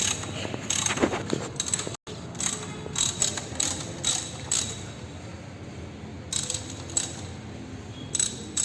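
Ratchet wrench clicking in short runs as the threaded rods of a coil spring compressor are wound in, compressing a strut coil spring. The clicking breaks off for a moment about two seconds in.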